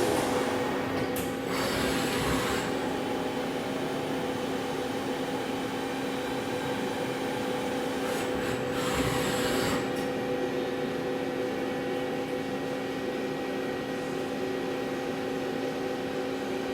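Hurco TM6 CNC slant-bed lathe running through a bar-feed cycle: a steady machine hum of several held tones, with two short spells of rushing noise, about a second in and again around nine seconds in.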